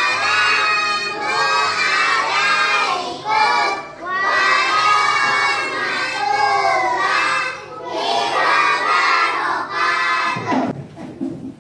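A class of young children singing loudly together in unison, in held phrases, stopping about ten and a half seconds in.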